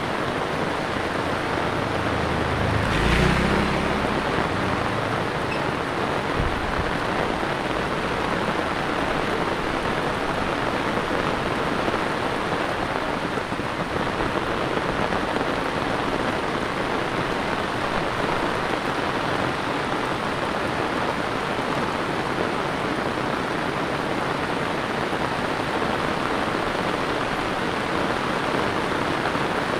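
Heavy rain pouring steadily onto paved ground and puddles, a dense even hiss. About three seconds in there is a brief, louder low rumble.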